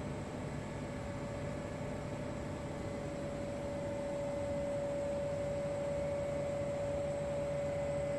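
Steady mechanical hum with a constant whine, with no knocks or bangs, growing a little louder about halfway through.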